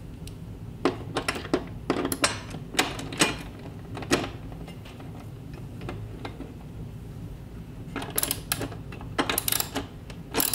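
Hand ratchet wrench clicking in short runs, with metal clinks from the tool, as M6 bolts are tightened through a wall-mount bracket into the back of an LED TV. The clicks come in clusters early on, pause, and return near the end.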